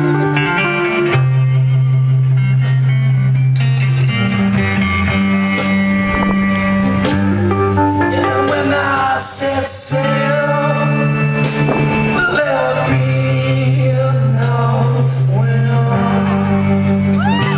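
Live rock band playing a slow, heavy blues-rock song: distorted electric guitar over long sustained bass notes that change every few seconds, with singing.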